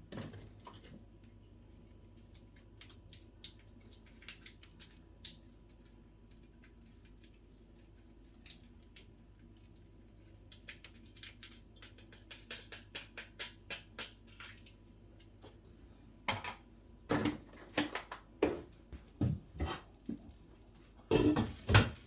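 Kitchen pots and utensils clinking and knocking during cooking: scattered light clicks, growing more frequent and louder in the last several seconds.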